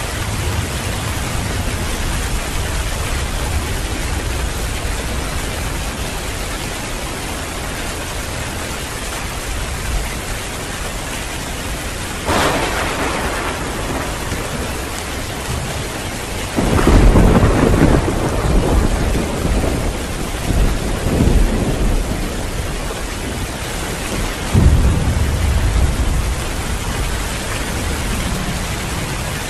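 Heavy rain pouring steadily, with thunder: a sharp crack about twelve seconds in, then a loud rolling rumble from about seventeen seconds in that lasts several seconds, and another rumble a few seconds before the end.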